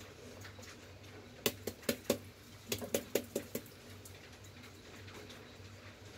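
Light clicks and taps from a plastic seasoning shaker being handled and shaken over a bowl of beaten eggs, about a dozen quick ones in the middle, over a faint steady low hum.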